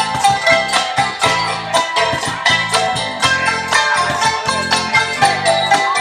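Small ensemble of traditional Thai instruments playing a modern song: a melody on mallet-struck tuned bars over a steady beat, with bass notes underneath.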